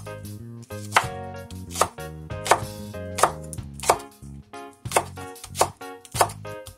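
Cleaver chopping green onions on a wooden chopping board: about eight sharp knocks of the blade through the stalk onto the board, a little over one a second at a steady pace.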